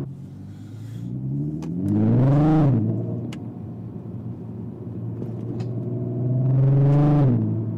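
Volkswagen Golf R32's 3.2-litre VR6 engine breathing through a Scorpion non-resonated exhaust, heard from inside the cabin while driving. The revs climb under acceleration about two seconds in, then drop sharply as the throttle lifts. The engine runs steady and quieter for a few seconds, then pulls loud again near the end before falling away.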